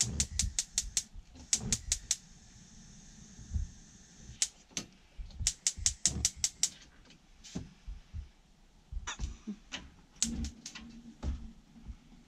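Battery-powered electronic spark ignition of a newly fitted gas oven and hob clicking in quick runs of about six clicks a second. The runs stop and start several times while the ignition is tested.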